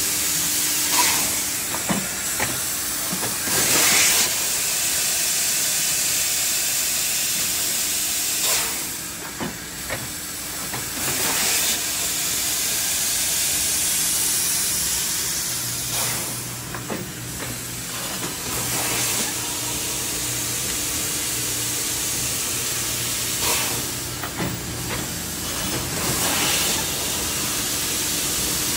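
Industrial plastics-forming machinery running: a steady loud hiss with a faint low hum, broken every few seconds by louder bursts of hiss and clanks.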